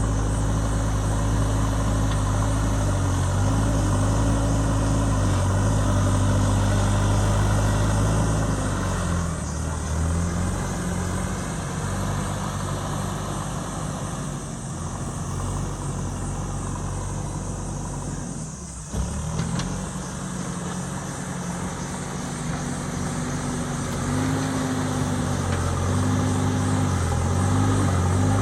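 JCB ecoXcellence backhoe loader's diesel engine running under working load, its pitch rising and falling repeatedly as the hydraulics are worked. It eases off and turns quieter for a while about a third of the way in, with a short jolt about two-thirds through before the engine picks up again.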